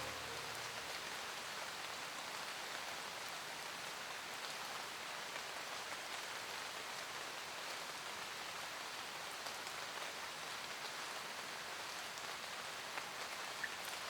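Steady rain falling, an even hiss, with a few sharper, louder drops near the end.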